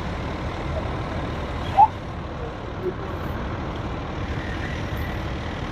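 Fire apparatus diesel engines running steadily in a low, even rumble, with a short high chirp about two seconds in.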